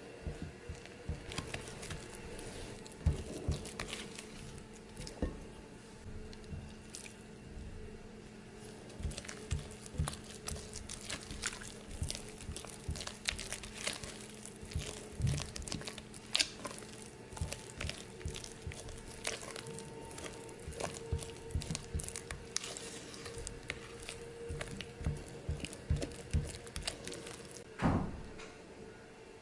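Spatula scraping and tapping against a glass mixing bowl while flour is folded into pound cake batter, in irregular scrapes and clicks over a faint steady hum. A single low thump near the end.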